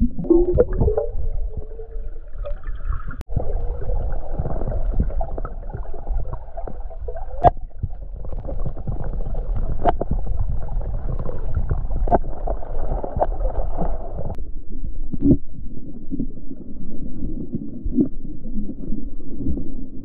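Muffled underwater noise of a stream picked up by a submerged camera: a steady low rumble and gurgling of water with the diver's movement, broken by a few sharp clicks or knocks.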